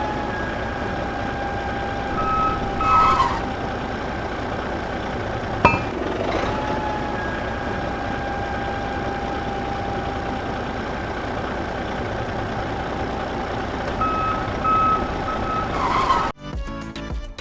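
Small motor running steadily with a whine that rises and settles at the start and again about six seconds in, after a sharp click; short beeps sound twice. Music comes in near the end.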